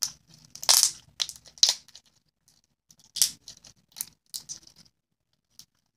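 Hands squeezing and pulling a stiff, hard glitter slime, making a string of short, sharp clicks and crackling pops at irregular intervals.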